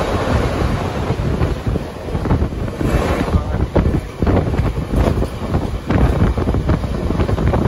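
Passenger train running at speed, heard from an open window: a steady rumble with a rapid, irregular clatter of wheels on rail and wind buffeting the microphone, as the train comes out of a tunnel into open country.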